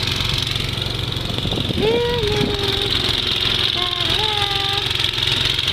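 A small engine running steadily with a low drone, with a child's high drawn-out calls about two seconds in and again near the end.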